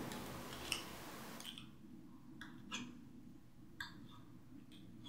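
Light, irregular clicks and taps of a metal palette knife against the palette and paint as colours are mixed, about seven or eight in all, over a soft hiss that drops away about a second and a half in.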